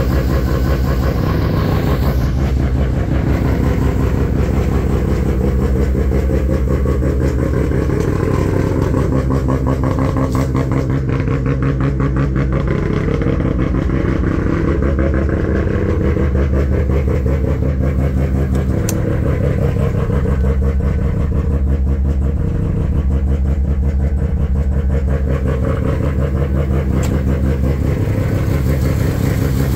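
Mazda RX-7 FC3S's bridgeported 13B twin-rotor turbo rotary engine running at idle, its exhaust sounding as a loud, rapid, steady pulsing.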